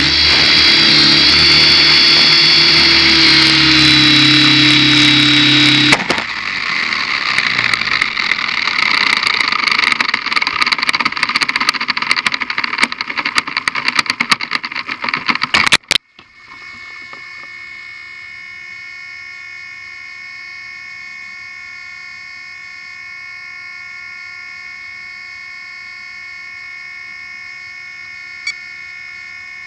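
Align 600 Pro RC helicopter flying with a loud steady whine of motor and rotor; about six seconds in the whine stops and gives way to a noisier clattering as it comes down and the rotor spins down, which cuts off abruptly about halfway through. After that a quieter steady hum of several pitches holds, with one small click near the end.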